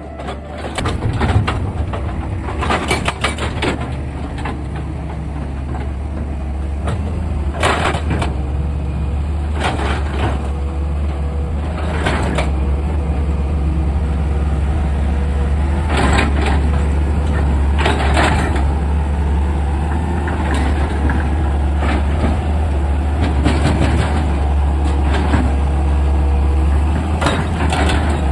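Excavator's diesel engine running steadily under load, with short, sharp working noises every two to four seconds.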